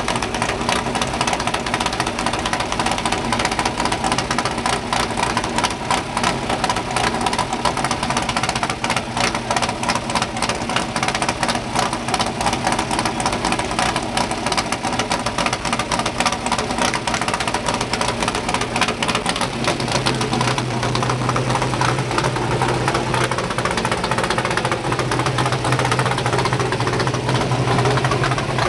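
Race trophy truck's engine running at a loud, uneven idle with a rapid rough pulse. Its low note deepens and grows stronger about two-thirds of the way through.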